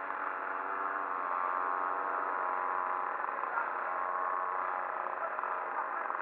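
Moped engine running steadily at cruising speed, a constant droning note that grows slightly louder about a second in.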